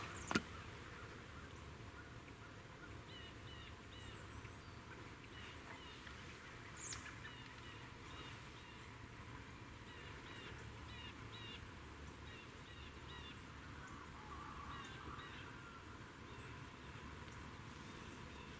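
Birds chirping faintly in short, repeated high notes over a steady low background hiss. Two sharp clicks come right at the start.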